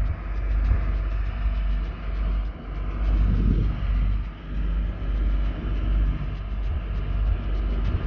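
RIB boat under way, its engine running with a steady low rumble that wavers a little in loudness, mixed with wind on the microphone.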